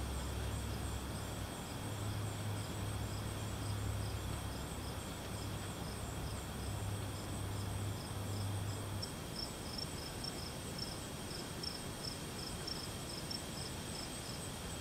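Insects chirping, crickets or similar, in a steady high trill with a regular pulsing beat. Under it runs a low hum that stops about nine seconds in.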